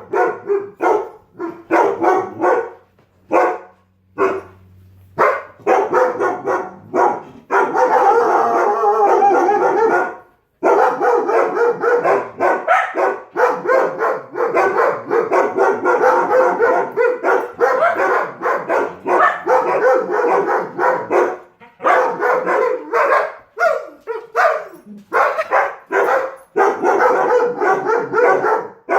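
Dogs barking in rapid, almost unbroken volleys, alarm barking to protest a skid steer.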